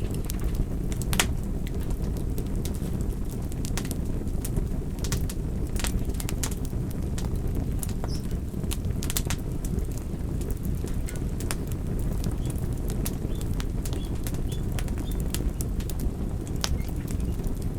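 Wood fire crackling: irregular sharp pops and snaps over a steady low rush of burning.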